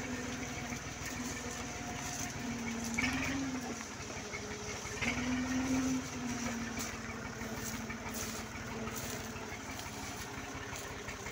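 Tractor's diesel engine running steadily at low speed while hauling a heavily loaded trolley, its pitch and loudness rising briefly about three seconds in and again around five seconds in.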